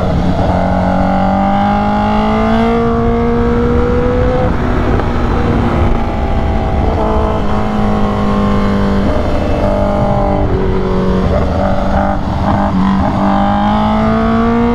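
Honda Fireblade's inline-four engine running hard through an SC Project exhaust with the catalytic converter deleted, heard from on the bike. The engine note climbs for the first few seconds, drops, shifts pitch a few times through the bends, then climbs again near the end.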